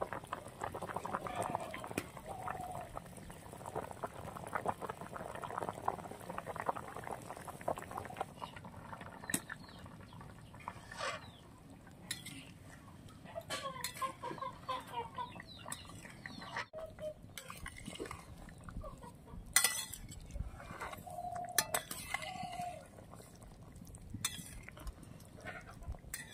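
Curry bubbling at a rolling boil in a metal wok for the first several seconds. After that comes a flat steel spatula stirring, scraping and clinking against the wok. Hens cluck briefly a few times in between.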